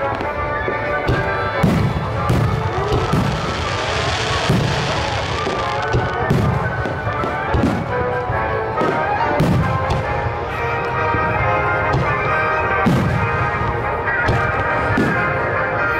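Aerial fireworks shells bursting in a steady, irregular run of booms and bangs, with music playing along throughout.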